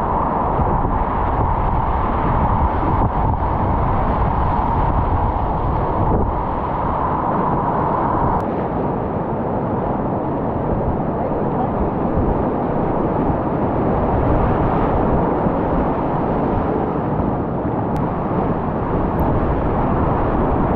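Whitewater rapids rushing steadily, heard up close from a kayak paddling through them.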